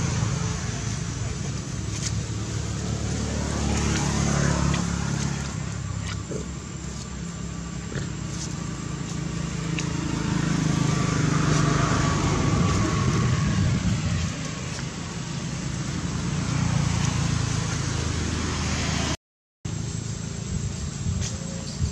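Road traffic running steadily, with motor vehicles passing by. Their engine pitch rises and falls as they go past, around four seconds in and again around eleven seconds. The sound cuts out for a moment about nineteen seconds in.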